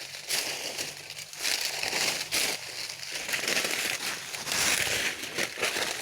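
Irregular rustling and crinkling noise that swells and fades in uneven surges every second or so.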